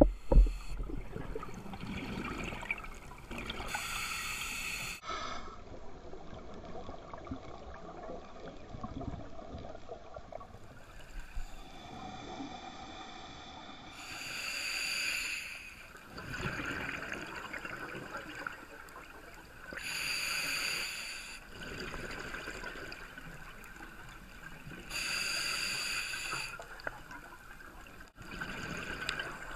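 Scuba diver breathing through a regulator underwater: exhaled bubbles burst out in loud rushes every five seconds or so, with a quieter hiss between them. A sharp knock right at the start.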